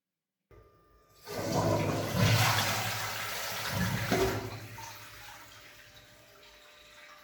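One-piece toilet flushing through its newly replaced flush valve: a rush of water starts about a second in, stays strong for about three seconds, then dies down to a quiet trickle.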